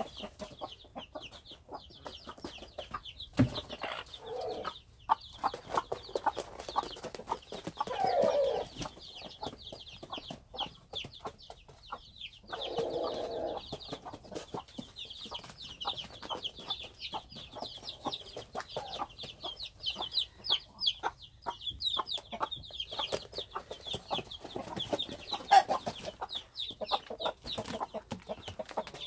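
Chicks peeping rapidly and continuously, high-pitched, while Cheonggye mother hens cluck and call in louder bursts every few seconds. There is a low thump a few seconds in and scattered sharp knocks.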